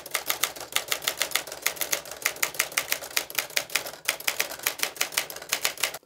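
Smith Corona Silent-Super manual portable typewriter being typed on at a quick, even pace, about seven or eight key strikes a second. The typing stops just before the end.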